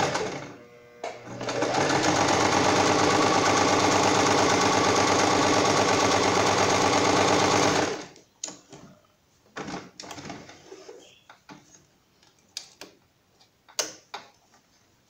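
Electric domestic sewing machine stitching fabric strips at a steady speed, stopping briefly about half a second in, then running again for about six seconds before stopping abruptly. After it stops, scattered light clicks and rustles.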